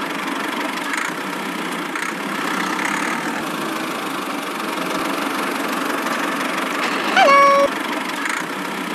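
Steady engine-like running noise of a tractor as the toy mini tractor drives with its trolley. About seven seconds in comes one short pitched tone that dips slightly and then holds for under half a second, like a horn.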